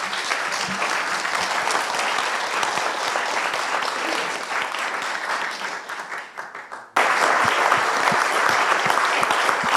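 Audience clapping, easing off toward the middle; about seven seconds in it cuts abruptly to louder applause.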